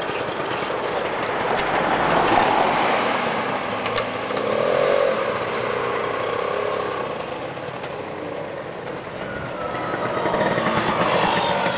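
Two-stroke scooter engine revving as the scooter rides off, its pitch rising and falling a few times over a steady engine noise.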